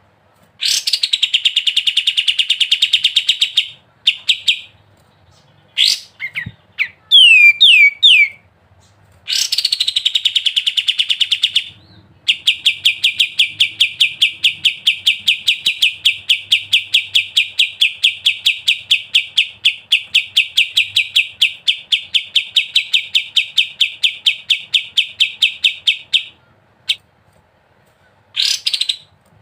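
Kapas tembak songbird singing its rapid, chattering 'ngebren' song: short bursts of fast repeated notes and a few sharp falling notes, then one long unbroken trill lasting about fourteen seconds that stops near the end.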